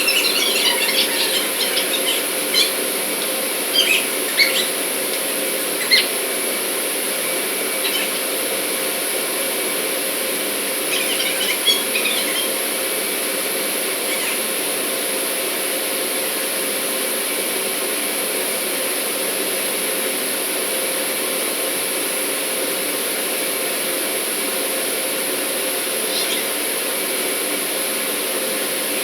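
Steady machinery drone with a constant tone running through it. Clusters of short, high squeaks come in the first twelve seconds and again near the end.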